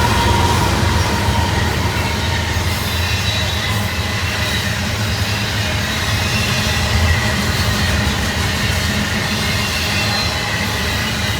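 Union Pacific intermodal freight train's cars rolling past with a steady low rumble, and thin high wheel squeals ringing over it.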